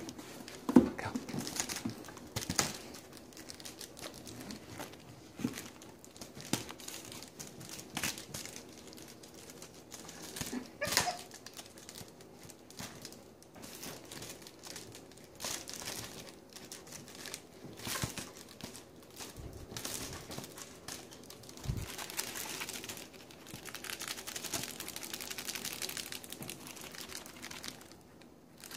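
Plastic bubble wrap crinkling and rustling as a cat paws at it, with scattered sharp crackles.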